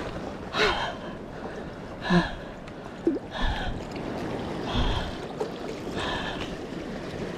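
A man's excited gasps and heavy breaths, about one every second or so, as he lifts a hooked Japanese spiny lobster from the water, over waves washing among concrete tetrapods.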